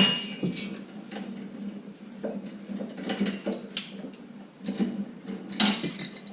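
Hand tools working bolts on the metal parts of a snow plow mount: irregular metallic clicks and clinks, with a louder clatter near the end.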